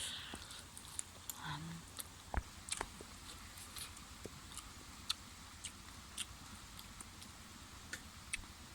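Eating sounds: scattered short, crisp clicks and crunches of food being bitten and chewed.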